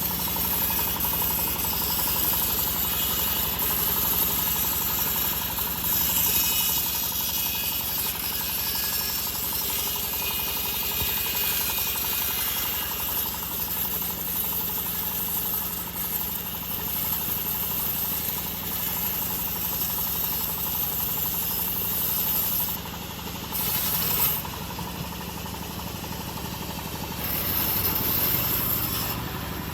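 Homemade engine-driven bandsaw mill running while sawing an old teak log: a steady engine drone under a high hiss from the band blade cutting. The hiss drops out twice near the end, while the engine keeps running.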